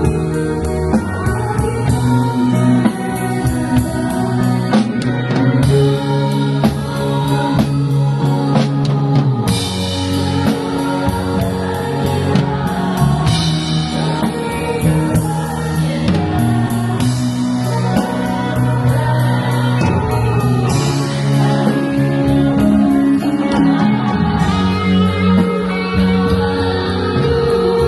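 Live rock band playing a song: drum kit, guitar and bass under a singing voice, continuous and loud.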